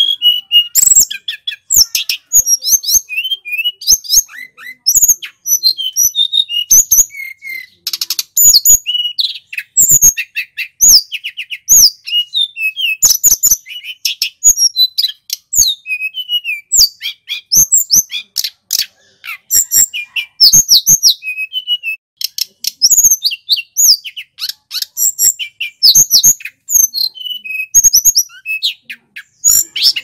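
Male tledekan gunung (sulingan gunung) flycatcher singing loudly and continuously: rapid, varied clear whistles, chirps and pitch glides, mixed with sharp clicks.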